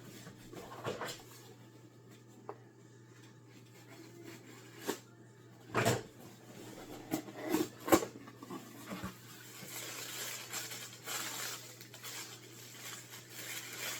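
A cardboard baking-kit box being handled and opened by hand: a few sharp knocks and taps around the middle, then steady rustling of the packaging.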